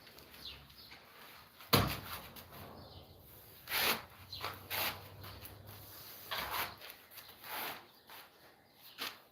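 Scattered knocks and short scraping sounds of workshop handling, with one sharp knock about two seconds in.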